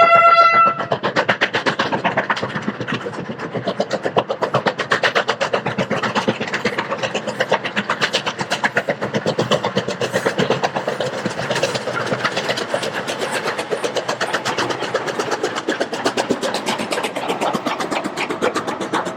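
A locomotive's whistle cuts off about a second in, then a fast, even rhythmic beat from the locomotive as it runs.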